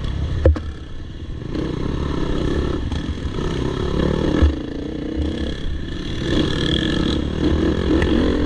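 Off-road dirt bike engine ridden hard on a trail, the throttle opening and closing so the engine note rises and falls. There is a sharp knock about half a second in and a shorter thump about four and a half seconds in.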